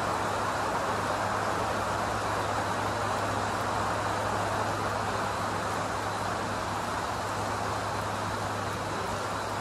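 Steady rain falling, an even hiss with no letup, over a steady low hum.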